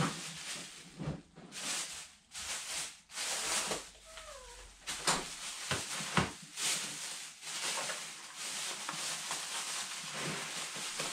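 Thin plastic grocery bags rustling and crinkling in uneven bursts as items are pulled out of them, with a brief faint falling squeak about four and a half seconds in.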